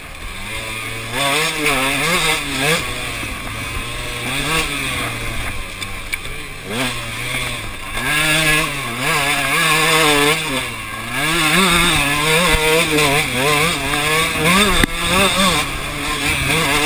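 KTM 125cc two-stroke dirt bike engine being ridden hard, its pitch rising and falling over and over as the throttle is opened and closed, with wind rush over the microphone.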